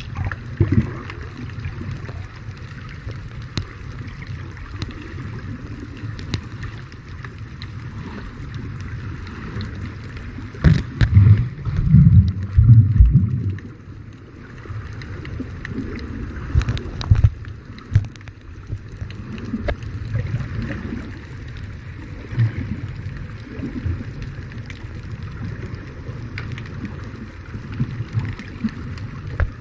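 Muffled underwater noise picked up by a submerged camera: a steady low water rumble and hiss with scattered clicks and knocks. There are stronger low surges a little before the middle and again briefly later.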